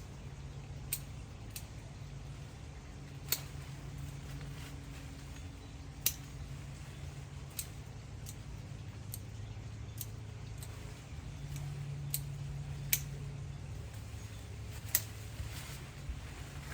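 Hand pruning shears snipping, a sharp click every second or two, over a steady low hum.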